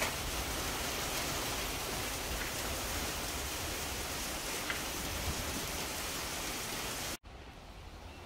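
Heavy rain falling steadily, a dense hiss with the odd sharper drop tick. It cuts off suddenly near the end, leaving a much quieter background.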